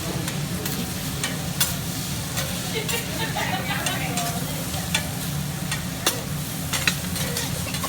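Food sizzling on a hot cooking surface, steady throughout, with sharp clicks scattered through it and a steady low hum underneath.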